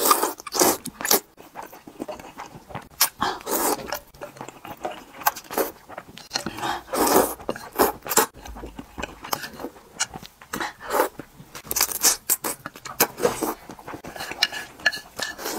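Rice noodles being slurped into the mouth in many short, wet bursts, with chewing in between.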